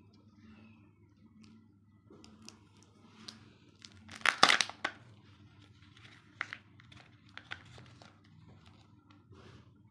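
A Kinder Joy egg's foil wrapper crinkling and being torn open, with one loud rip about four seconds in and scattered crackles around it.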